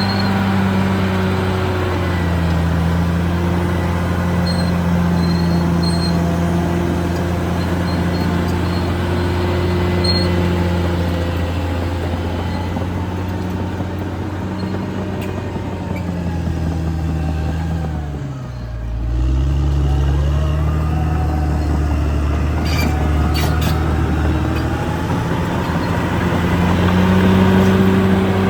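Caterpillar D6R XL bulldozer's diesel engine running under working load. Its pitch sags, dips sharply about two-thirds of the way through and recovers, then rises again near the end.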